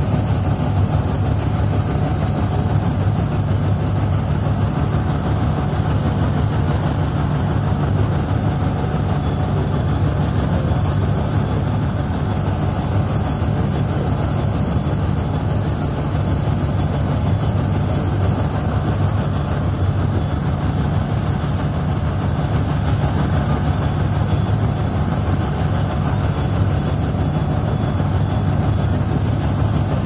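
Boat's engine running steadily: a constant low hum that does not change, under an even rushing noise.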